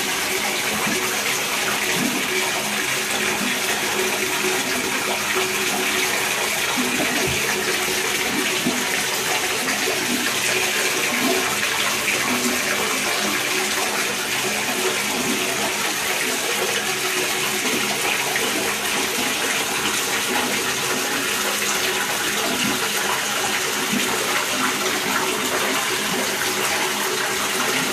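Water running steadily into a bathtub while a dog is being washed in it.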